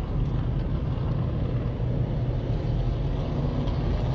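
A field of NASCAR Modified race cars' V8 engines running on the track, a steady, deep engine sound heard through a phone's microphone.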